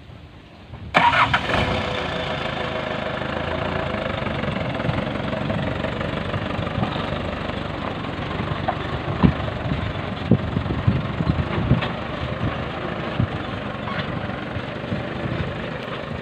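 Mitsubishi PS100 Colt Diesel truck's diesel engine starting suddenly about a second in, then running steadily as the truck moves off, with several sharp knocks between about nine and twelve seconds in.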